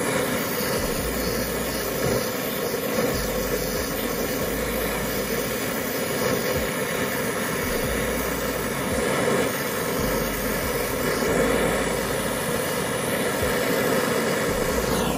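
Handheld brazing torch flame burning steadily as copper refrigerant tubing is brazed onto a freezer compressor.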